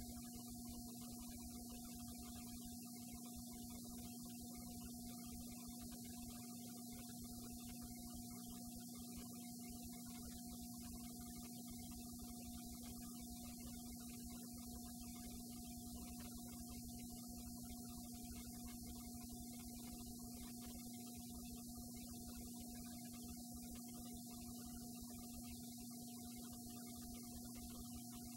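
A steady electrical hum with two unchanging tones, one low and one higher, over a constant faint hiss. Nothing else is heard.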